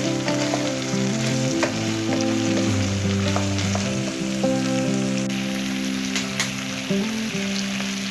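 Food sizzling as it fries in a pan, with scattered clicks of stirring, over background music with slow held notes.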